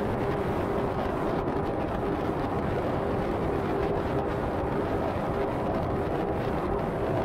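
A car travelling at highway speed: steady tyre and road noise with a constant hum running under it.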